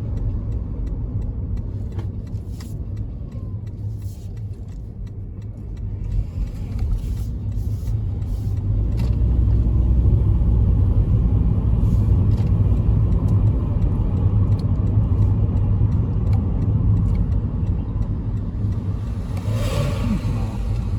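Car driving: a steady low road and engine rumble that grows louder about six to ten seconds in.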